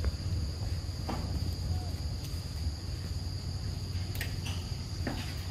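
Insects keeping up a steady, unbroken high-pitched whine, over a low rumble, with a few faint taps.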